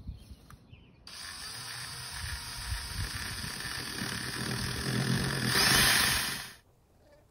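A small cordless power tool, a drill-driver, runs steadily for about five and a half seconds. It starts abruptly about a second in, gets louder toward the end, and cuts off suddenly.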